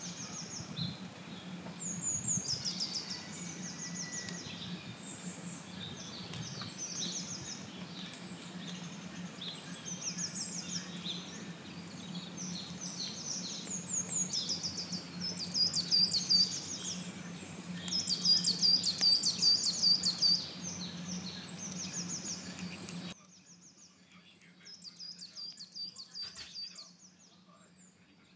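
Several small songbirds singing in woodland, overlapping phrases of quick, high repeated notes, over a steady background hiss that drops away suddenly about three-quarters of the way through.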